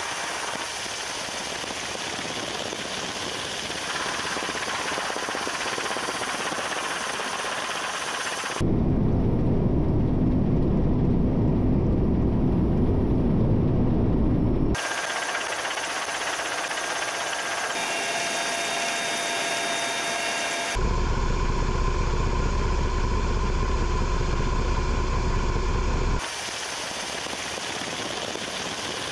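Helicopter turbine and rotor noise heard on board: a steady loud rushing noise. About nine seconds in, and again about twenty-one seconds in, it switches abruptly to a louder, deeper rumble for five or six seconds.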